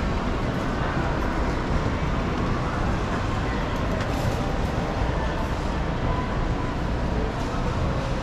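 Steady low rumble of a moving vehicle, with faint thin whines at times.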